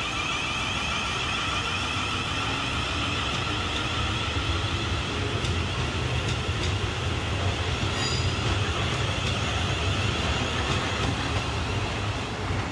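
A South West Trains Class 450 Desiro electric multiple unit running away along the tracks, with a steady whine from its electric traction equipment over a low rolling rumble. A few sharp wheel clicks over rail joints come about halfway through.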